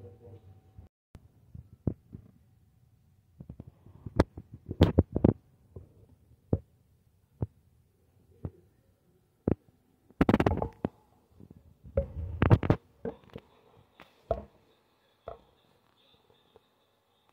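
Irregular sharp clicks and knocks on a wire hamster cage, some single and some in quick clusters, the loudest bunches about a third and two thirds of the way through.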